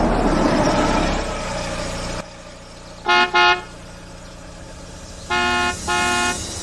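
A van pulls up with engine and tyre noise, then its horn sounds: two short toots in quick succession, then two longer honks.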